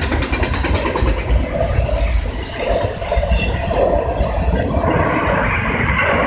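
Freight train of auto rack cars passing fast at track speed: a steady, loud rumble and rattle of the cars and wheels on the rails, with a run of quick wheel clicks at the start.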